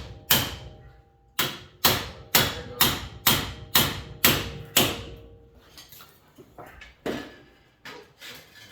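Hammer blows on metal: about nine hard strikes, roughly two a second, with a faint ringing note between them, followed by a few lighter taps.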